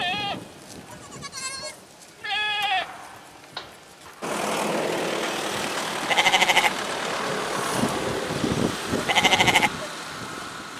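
Goats bleating: three short bleats in the first three seconds, then two longer, wavering bleats about six and nine seconds in, over a steady background hiss that starts suddenly about four seconds in.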